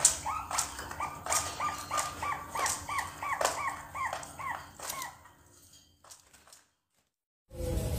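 Young zebra doves (perkutut), about two months old, practising their song: a quick run of short, hooked cooing notes, about three a second, with sharp clicks among them. The calling fades out about five seconds in, and a low rumble starts near the end.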